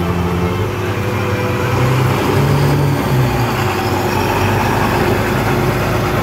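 City bus driving past and away along a wet street: its engine running and its tyres hissing on the rain-soaked road.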